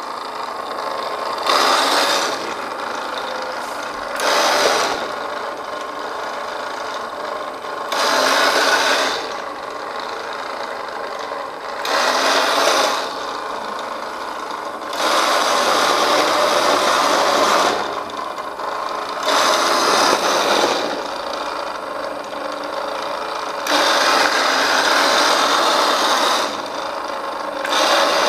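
Battery-operated radio-controlled toy space car's small electric motor and plastic gears running with a continuous rasping whir. It grows louder in about eight stretches of one to three seconds, as the car drives and turns.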